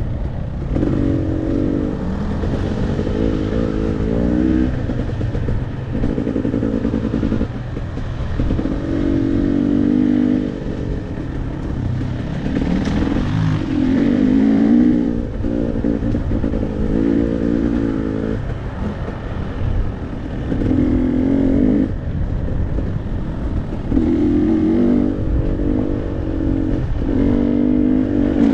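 Dirt bike engine under way, revving up and easing off again and again as the throttle is worked, over a constant low rumble.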